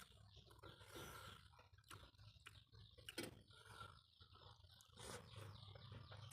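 Faint sounds of a person eating pork noodle soup: soft chewing and mouth clicks, with a few sharper clicks.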